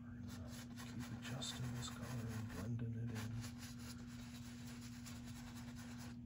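Paintbrush scrubbing thin acrylic paint onto a stretched canvas in short strokes, a soft scratchy rubbing that is busiest in the first half, over a steady low hum.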